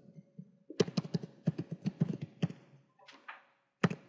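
Typing on a computer keyboard: a quick, irregular run of key clicks, then after a pause a single louder keystroke near the end, the Enter key submitting a search.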